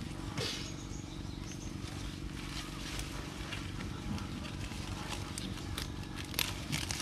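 Porterweed stems being snapped and pulled off by hand, leaves rustling with scattered sharp cracks, a few louder ones near the start and near the end, over a steady low rumble.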